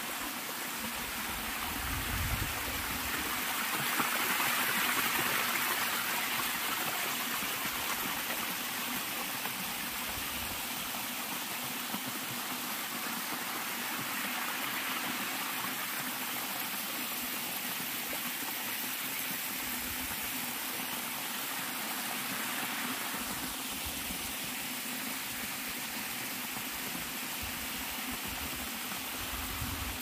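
A small waterfall makes a steady rush as thin streams of water cascade over rock ledges. It swells a little around four to six seconds in.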